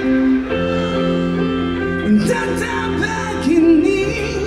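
Live slow-rock ballad played through the reaction video: a male singer with a band, over sustained guitar chords and a few cymbal strikes.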